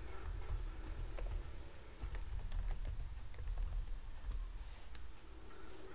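Typing on a computer keyboard: a run of irregularly spaced key clicks, over a steady low hum.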